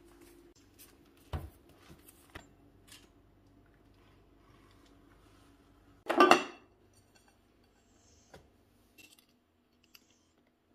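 Kitchen handling noises as a rolled pastry sheet on baking paper is unrolled and smoothed on a cutting board, and a plate and a pizza cutter are set down on it: soft knocks and clicks, with one much louder half-second rustling clatter about six seconds in.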